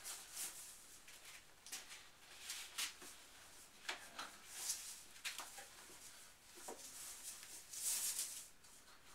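Cloth light shroud of a truss Dobsonian telescope being pulled down over the truss poles: irregular soft rustles and swishes of fabric, the loudest near the end.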